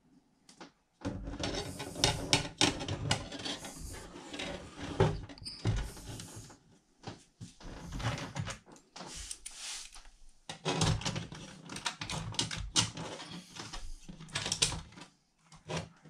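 Irregular clattering, knocking and rustling as hands set down a piece of H0 model railway track and place a Märklin BR 18 model steam locomotive and its tender onto it. The knocks start about a second in and come in bunches with short pauses.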